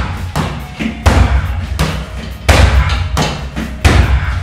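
Heavy punching bag struck with alternating gloved straight punches and low kicks, without a pause: five heavy thuds, the quicker ones about two-thirds of a second apart.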